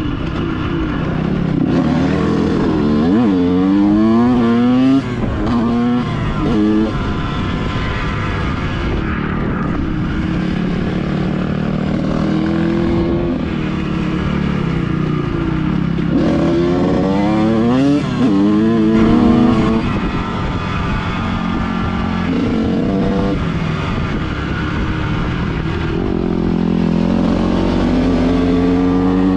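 Dirt bike engine being ridden hard, its revs climbing and dropping again and again as the throttle opens and shuts, with quick runs of rising pitch about three to seven seconds in and again about sixteen to twenty seconds in.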